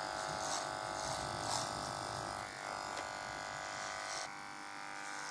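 Electric hair clippers buzzing steadily as they cut a child's hair, getting a little quieter about four seconds in.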